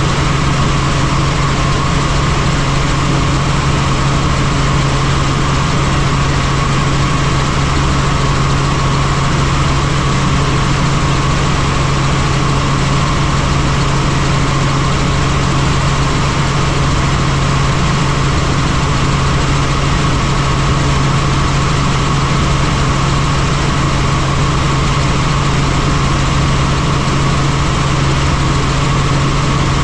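Helicopter in flight: loud, steady engine and rotor noise, a strong low hum under a higher whine.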